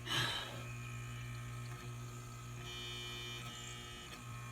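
Refrigerator motors running with a steady low electric hum, with a short rustle just after the start. The refrigerator's evaporator fan motor is failing.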